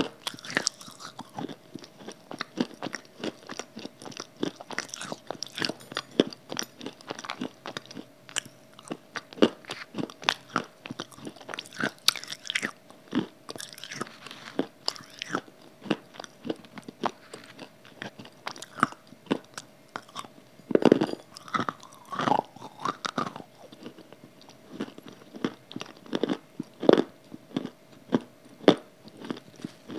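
Close-miked crunching and chewing of hard pieces from a grey, chalk-like block, sharp crunches coming several times a second with a louder cluster about twenty-one seconds in. A faint steady hum runs underneath.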